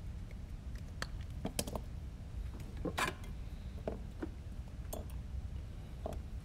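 Scattered clicks and taps of small hand tools being handled and set down on a silicone work mat during drone wiring work, the loudest about three seconds in, over a steady low hum.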